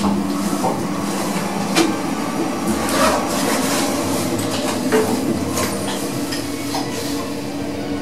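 Schindler machine-room-less passenger lift running, heard from inside the car: a steady hum while it travels, with a few knocks and rattles from the doors and car.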